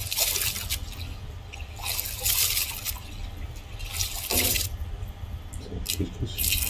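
Rice being washed by hand in water in a steel vessel: splashing and sloshing in short spells, then the cloudy rice water poured off near the end, over a low steady hum.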